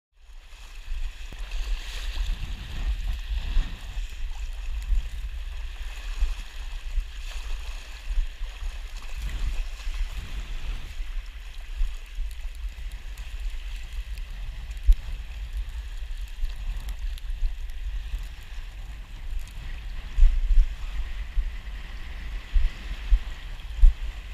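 Wind buffeting the microphone of a head-mounted action camera in uneven gusts, over water sloshing and splashing in the shallows.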